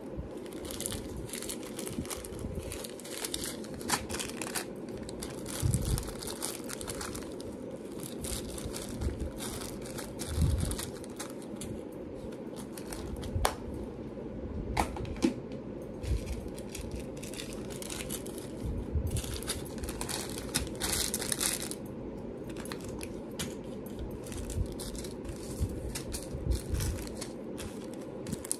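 Crinkly packaging handled in irregular bursts of crinkling and rustling, with a few sharp light clicks, over a steady low background hum.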